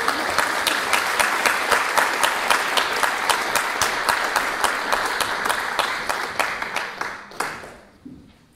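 Audience applauding, a dense patter of many hands clapping that dies away about seven and a half seconds in.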